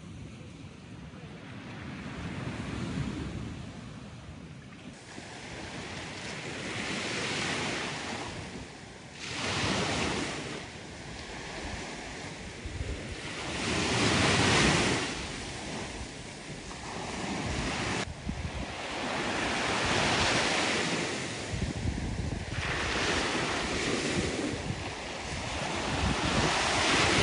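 Small Black Sea waves breaking and washing onto a sandy beach, swelling and falling every few seconds, with wind rumbling on the microphone.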